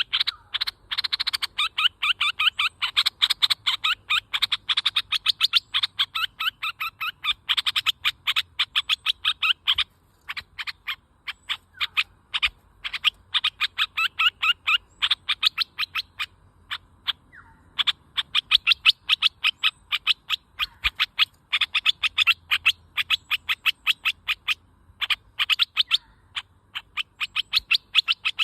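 Bulbul calling: a long, fast series of short, sharp notes, about four to five a second, broken by short pauses.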